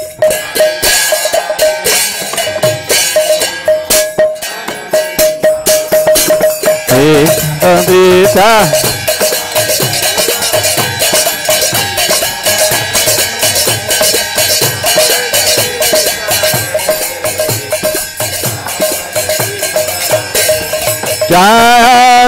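Devotional kirtan music with no words: metal hand cymbals (karatalas) clash rapidly and drums beat over a steady held harmonium note. A short sung phrase comes in about seven seconds in, and the voices return near the end.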